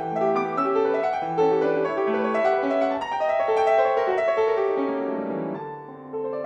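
Solo concert piano playing a flowing classical étude, with many overlapping notes; the texture thins and softens briefly about five seconds in before the playing picks up again.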